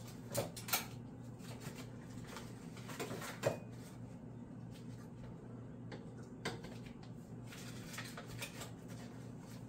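Kitchen handling sounds: scattered clinks and knocks of dishes and utensils, the loudest about three and a half seconds in, over a steady low hum.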